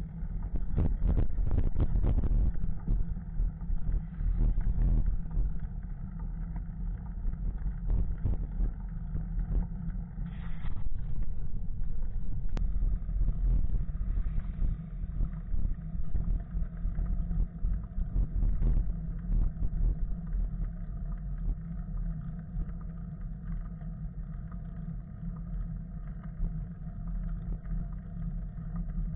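Wind buffeting the microphone of a camera riding along on a moving bicycle: a deep, gusty rumble that surges and falls, with road noise underneath.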